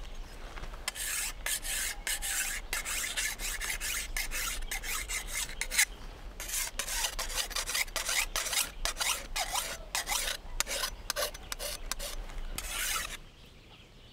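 Dense, irregular rasping and scraping strokes, cutting off abruptly near the end.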